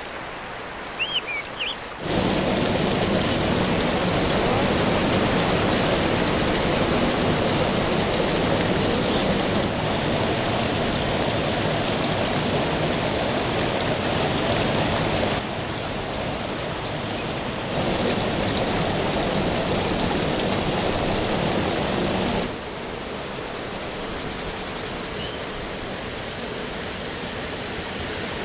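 Rushing water of a stream running over rocks. It comes in loud about two seconds in, after a quieter stretch with a few rising bird chirps, and drops to a softer flow near the end. High bird chirps sound over the water now and then, and a high buzzing trill comes in briefly near the end.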